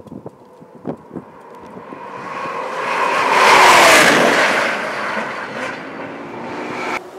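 Audi R8 LMS GT race car with a V10 engine passing at speed on the circuit. It swells up to a loud peak about halfway through, its engine note drops in pitch as it goes by, and then it fades away.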